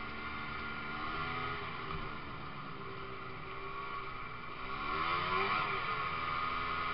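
Ski-Doo snowmobile engine running as the sled rides across snow. The revs rise and fall back about five seconds in, getting louder as they do.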